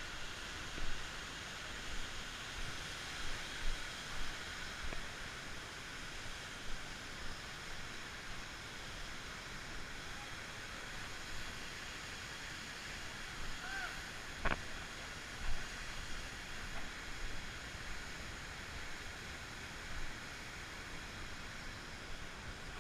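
Waterfall rushing water: a steady, even roar of falling water with a few brief knocks and one sharp click partway through.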